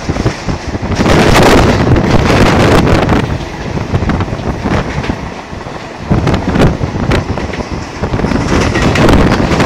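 Loud wind buffeting the microphone from the open doorway of a fast-running suburban electric train, rising and falling in gusts, over the rumble and clatter of train wheels on the track.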